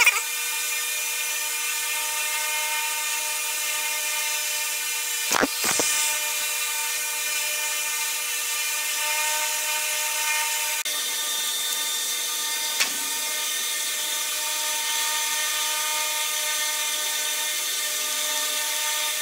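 Steady machine hum with hiss, holding the same pitch throughout, broken by a pair of sharp clicks about a third of the way in and a single click about two-thirds in.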